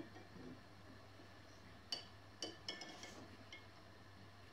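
A few faint clinks of an egg and fingers knocking against a glass jar of water as the egg is lowered in, about two to three seconds in, otherwise near silence.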